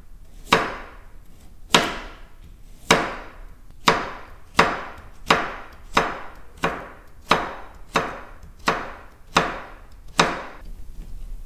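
A series of about thirteen chopping strikes on a wooden cutting board, each sharp hit followed by a short decaying ring. They start about a second apart and quicken a little after the first few.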